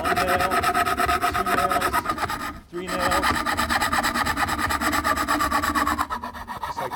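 Magic Saw hand saw's thin high-carbon steel blade cutting a curve through a wooden board in quick, even back-and-forth strokes, with a short break a little before halfway.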